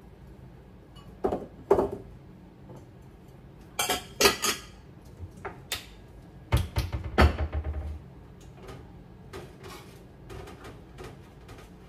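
Glasses and dishes clinking and knocking as they are set onto kitchen cabinet shelves. About six and seven seconds in, two cabinet doors shut with heavier thuds, followed by a few lighter clicks and taps.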